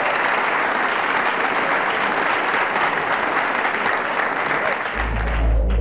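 Crowd applauding, a dense steady clapping that cuts off suddenly near the end. A deep, low musical tone comes in underneath about five seconds in.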